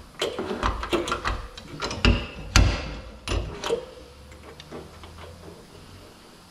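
Slide-hammer dent puller hooked onto welded pins on a truck's steel door panel, its weight knocking against the stop as the dent is slowly worked out: a run of sharp metal knocks, the loudest about two and a half seconds in, dying away after about four seconds.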